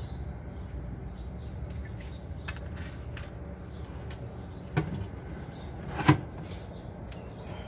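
Two sharp knocks a little over a second apart, the second louder, as things are handled inside a steel storage box on a truck's chassis, over a steady low background rumble.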